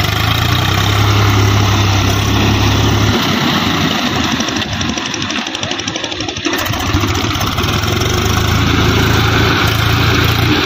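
Swaraj diesel tractor engine running as it drags a rear rotavator through a flooded paddy field, puddling the mud for rice transplanting. The low engine drone fades for a few seconds in the middle and then comes back.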